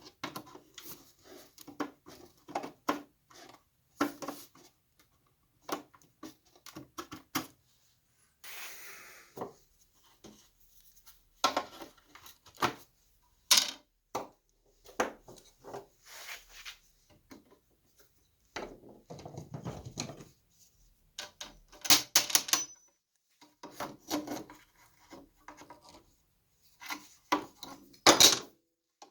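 Wooden drawer parts being handled on a workbench: scattered knocks, taps and rubbing of wood, with a brief rustle partway through and sharper clatters near the end.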